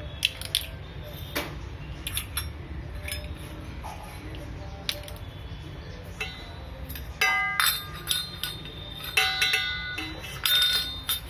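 Stainless steel spoon and small steel tumbler being tapped and clinked together and on a marble floor: scattered light clicks, then several louder ringing metal strikes in the second half.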